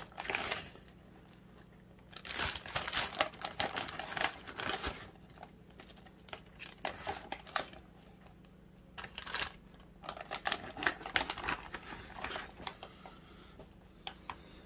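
Plastic vacuum-seal and zip-top bags crinkling in repeated bursts as raw chicken thighs are moved from one bag into the other.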